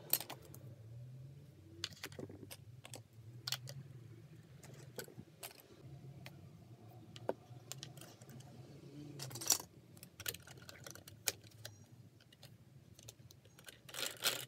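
Hard plastic toy construction pieces clicking and clattering as they are handled and pushed together: pegs pressed into a plastic frame and a plastic gear fitted on. The sharp clicks come every second or two, with a loud clatter near the end.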